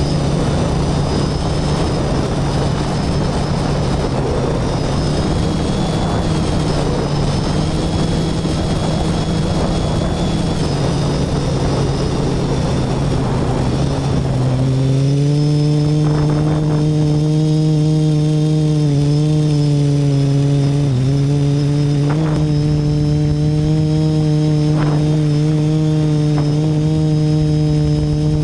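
Quadcopter's electric motors and propellers, heard from its onboard camera: a steady pitched hum under a heavy rushing wind noise for the first half. About halfway in the rush drops away, leaving a clear, steady propeller hum that wavers slightly in pitch, with a few faint clicks.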